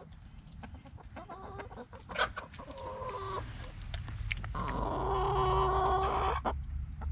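A flock of hens clucking, with short calls at first and then longer, drawn-out calls that grow louder through the middle.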